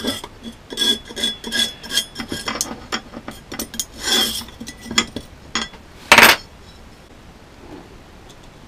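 A small metal tool scrapes and clicks along the channel of an aluminium windscreen frame, cleaning corrosion and oxidation out of the groove, with light metallic clinks. About six seconds in there is one loud clunk, the metal frame being set down on the workbench.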